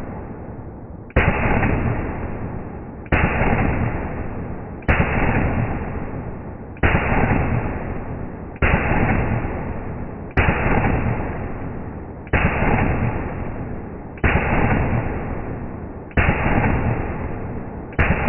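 Shots from a Daniel Defense rifle, slowed down: about ten evenly spaced bangs roughly two seconds apart, each starting sharply and dying away over nearly two seconds.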